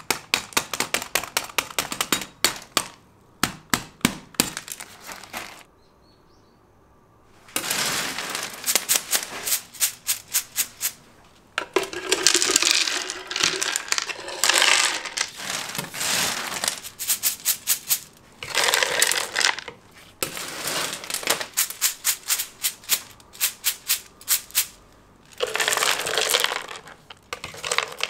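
Small pieces of handmade hard candy clicking and rattling against each other and a hard surface, in quick runs of sharp clicks broken by several longer rattling bursts.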